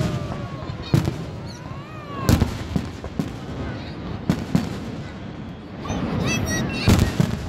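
Aerial fireworks shells bursting, a sharp bang every second or so with a quick cluster of bangs near the end.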